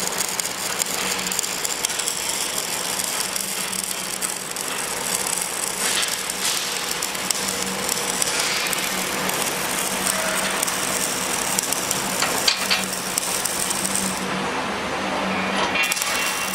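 Hand ratchet wrench clicking as bolts are run in on a steel beam splice plate, with loose steel bolts clinking in a cardboard box about halfway through.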